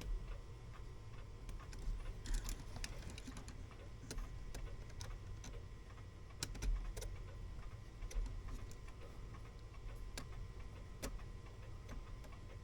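Light, irregularly spaced clicks and ticks from the brass gears and parts of a Herschede clock movement being handled during reassembly, over a low steady hum.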